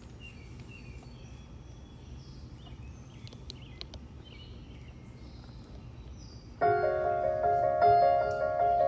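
Birds chirping over a low steady hum, then about six and a half seconds in a red Nord digital piano, heard through small speakers, starts playing sustained chords.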